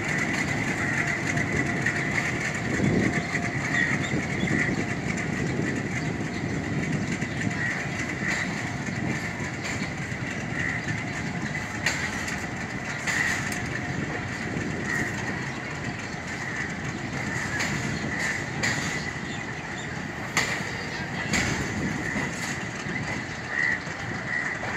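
Passenger train coaches rolling along the track, a steady rumble with scattered sharp wheel clacks over the rails.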